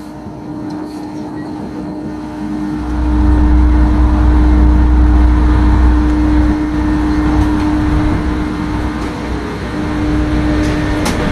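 The ferry Itsukushima's machinery humming steadily on its car deck. A deep rumble swells about three seconds in and eases off a few seconds later.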